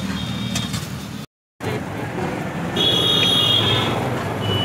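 Busy street ambience of traffic and a low rumble, with faint background voices. It cuts to silence for a moment a little over a second in, and about three seconds in a short, high, thin whistle-like tone sounds over it.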